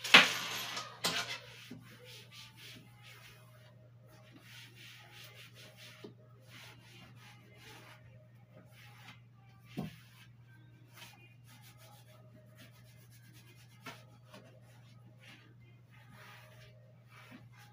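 Cloth wiping the shelves of a white shelf unit: repeated soft rubbing strokes, with a loud swish right at the start and a couple of light knocks about ten and fourteen seconds in.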